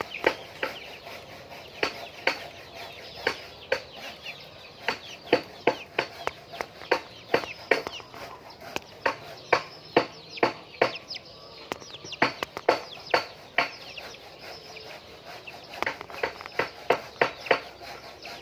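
Laying hens clucking: a run of short, sharp calls, about two a second, with a brief lull.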